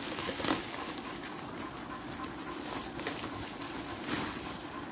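Plastic bubble wrap rustling and crinkling as hands unwrap a packaged die-cast toy, with a few soft crackles.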